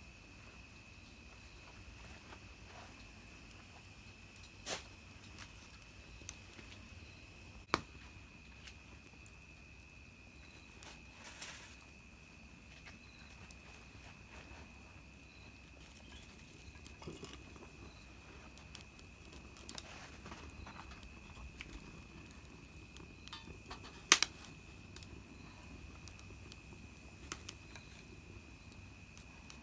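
Small wood fire in a mini fire pit crackling, with scattered sharp pops, the loudest about 24 seconds in, over a steady high-pitched whine.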